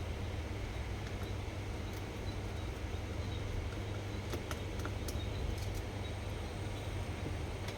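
A few faint, sharp clicks of small baitcasting-reel parts and tools being handled during disassembly, over a steady low hum.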